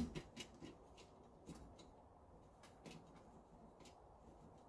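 A few faint, light ticks of bicycle wheel spokes and nipples being handled while lacing the wheel, over near silence.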